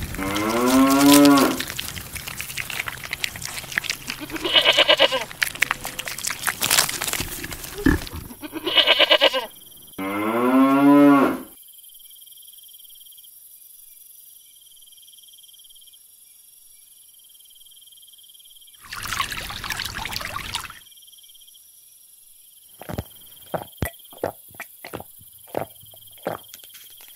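A cow mooing four times, long calls that rise and fall in pitch, all in the first half. Later comes a short rushing noise, then a run of light clicks and taps.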